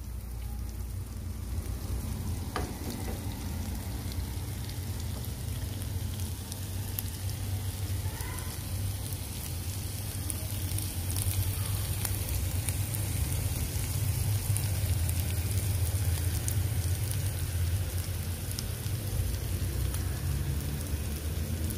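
Meat sizzling on a hot iron tawa: a steady crackling hiss over a steady low rumble.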